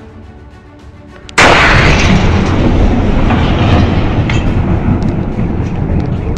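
Shock wave of the 2013 Chelyabinsk meteor airburst arriving: a sudden loud boom about a second and a half in, then a long heavy rumble with a few sharp cracks.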